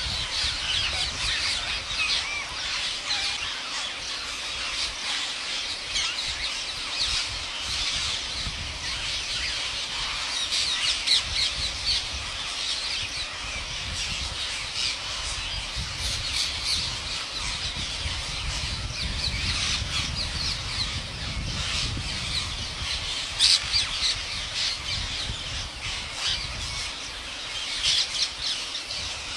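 A huge flock of rose-ringed parakeets screeching, a dense, unbroken chorus of shrill calls, over a low rumble.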